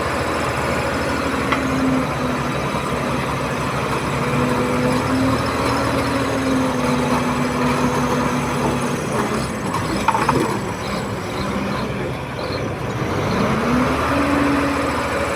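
Komatsu D31P bulldozer's diesel engine working under load, its pitch rising and falling. It drops off about ten seconds in and climbs again near the end, with a brief metallic clank as it drops.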